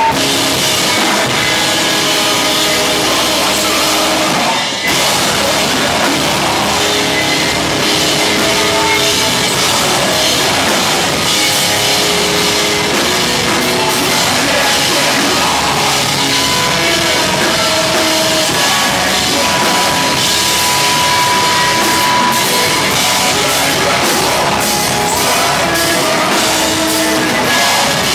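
A rock band playing loud and live: electric guitars and a drum kit with a vocalist singing into a microphone. The music drops out for a split second about five seconds in.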